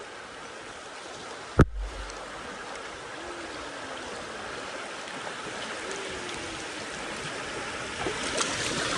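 River water rushing steadily around a bamboo raft, with one sharp knock about one and a half seconds in.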